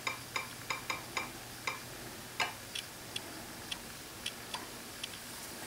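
Irregular clicks from typing on a Google Nexus 7 tablet's on-screen keyboard, quick at first and sparser after about two and a half seconds.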